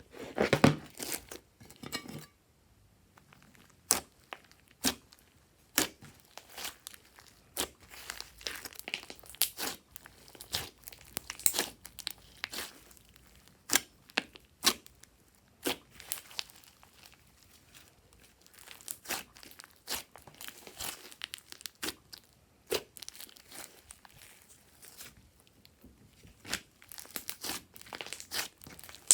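Glossy slime being worked by hand: irregular sticky pops, clicks and crackles as it is squeezed, folded and pulled apart.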